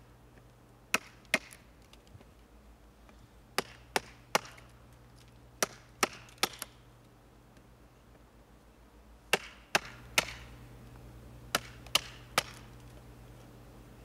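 Sharp wooden knocks in clusters of two or three: a wooden baton striking the spine of a SOG Vulcan folding knife as the blade is driven into a dry pine branch.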